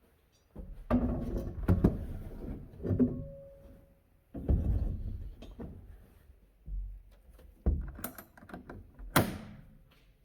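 A string of irregular heavy knocks and clunks, like objects being handled and set down, with the sharpest clank near the end.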